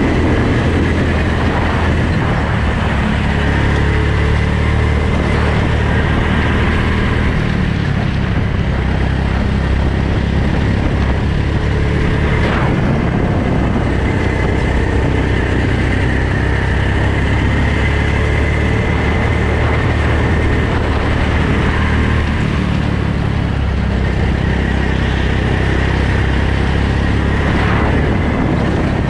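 Go-kart's small petrol engine running steadily under throttle, its pitch drifting up and down a little with the throttle, heard from the driver's helmet.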